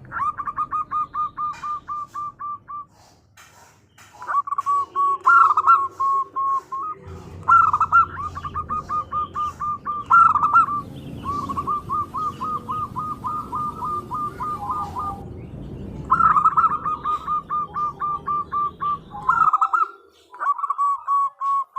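Female zebra dove (perkutut) calling: several runs of rapid, evenly repeated short coos, about six a second, each run lasting two to three seconds with brief pauses between. A low, steady background rumble sits underneath until near the end.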